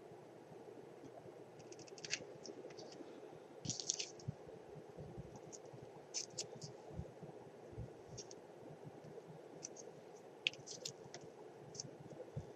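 Scattered small clicks and scratches of burlap, lace and a hot glue gun being handled and pressed together by hand, over a faint steady hum.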